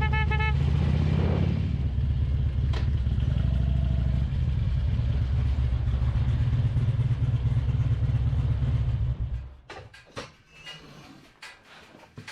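Harley-Davidson Road King's V-twin engine running steadily with a deep rumble, which cuts off abruptly about nine seconds in, followed by a few scattered clicks and knocks. A brief pulsed beeping is heard right at the start.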